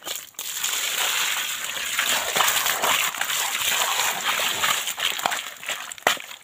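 Water splashing into a landing net full of freshly caught fish: a steady rush that starts abruptly near the start and stops shortly before the end, with a few sharp knocks.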